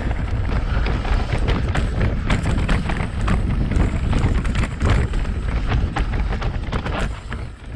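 BH Lynx full-suspension mountain bike riding over a rocky singletrack: wind buffeting the on-bike camera microphone as a heavy rumble, with tyres crunching over stones and the bike rattling and clattering in a dense run of knocks over the bumps.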